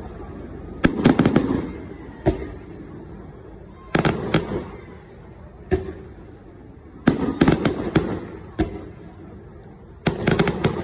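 Aerial fireworks bursting overhead: a cluster of sharp bangs and crackles about every three seconds, each cluster followed by a single separate bang.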